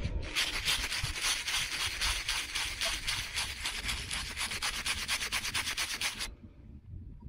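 Stiff hand brush scrubbing soil off a dug-up piece of a metal fork or spoon, in rapid back-and-forth strokes. The scrubbing stops suddenly about six seconds in.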